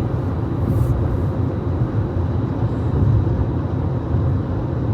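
Steady road noise inside a moving car's cabin: a low, even rumble of tyres and engine at highway speed.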